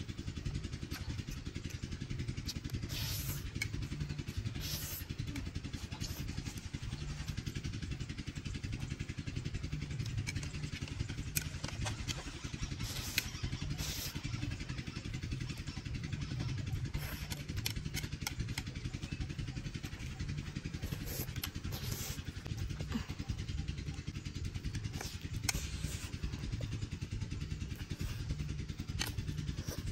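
Instant noodles being slurped and chewed, with short slurps every few seconds over a steady low rumble.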